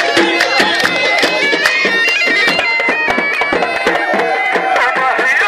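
Loud Arabic folk dance music with a reedy, bagpipe-like wind melody held on steady notes over a fast, even beat, with hands clapping along.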